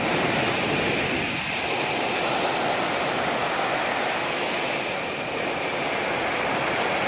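Rough sea surf: a steady, continuous rush of breaking waves.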